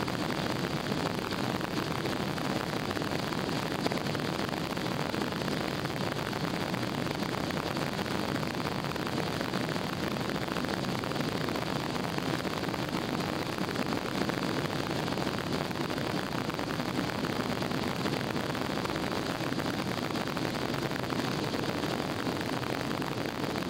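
Jet airliner's engines at takeoff thrust during the takeoff roll, heard inside the cabin as a steady rushing roar of engine and air noise.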